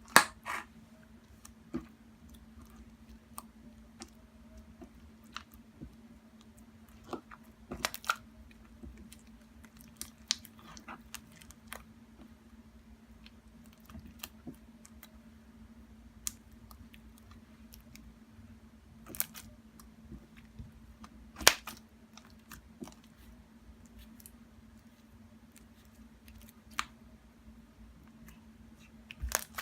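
Butter slime being handled and squished: scattered soft clicks and crackly snaps, a few sharper ones, over a steady low electrical hum.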